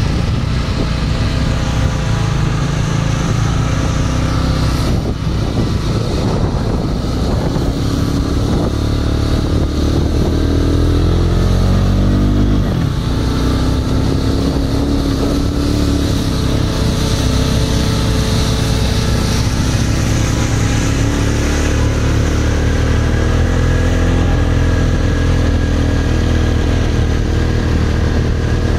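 John Deere 7530 tractor's six-cylinder diesel running steadily under load while driving its Lely Splendimo disc mowers through cut grass. A note climbs for a few seconds and breaks off about twelve seconds in.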